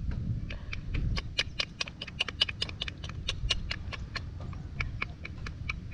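Rapid, slightly irregular clicking or kissing sounds, about five a second, made by an eel angler to lure a rice-field eel out of its hole.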